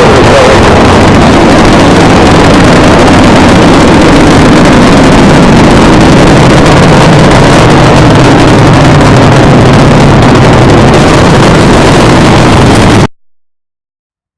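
Extremely loud, distorted wall of noise at full volume, with a steady low hum under it. It cuts off suddenly into dead silence near the end.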